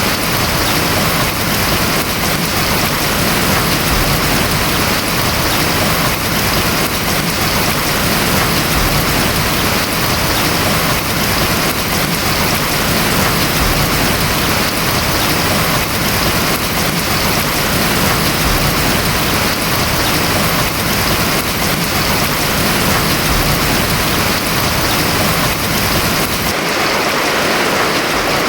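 Steady heavy rain falling on a house roof, a continuous even hiss and patter. About 26 seconds in, the sound thins a little, losing some of its deep rumble and top end.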